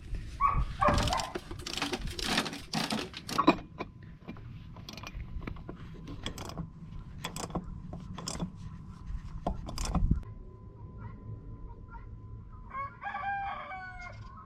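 Scattered sharp knocks and clanks in the first few seconds, then a rooster crowing once about 13 seconds in.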